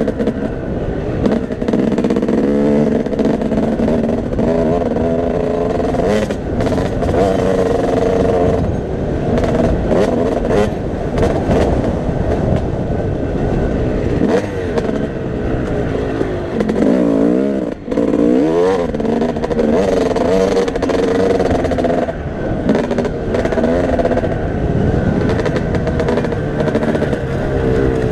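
Motocross bike engine revving up and down through the gears as it is ridden hard, heard close up from a helmet-mounted camera with wind rumble on the microphone. The engine note drops briefly about two-thirds of the way through, then climbs again.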